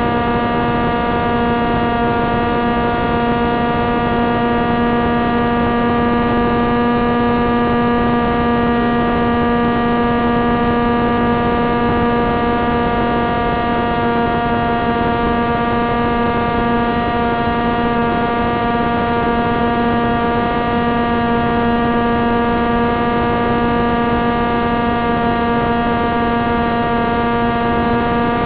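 A Wing Wing Z-84's brushless motor spinning its propeller at a constant speed, making a steady buzzing hum with many overtones and no change in pitch, as in a propeller balance run.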